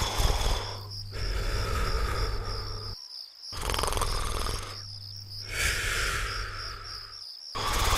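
Cartoon snoring, two full breaths: a loud rattling snore on each in-breath, then a whistling out-breath that falls slightly in pitch, each breath ending in a short silence. A steady high, cricket-like chirping runs behind it.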